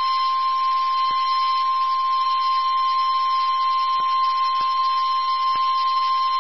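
NOAA Weather Radio warning alarm tone: a single steady, unbroken 1050 Hz tone, the alert signal that comes just before a warning broadcast, here a severe thunderstorm warning.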